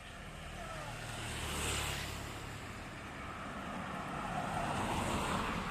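Engine noise of a passing vehicle swelling twice, with wind on the microphone.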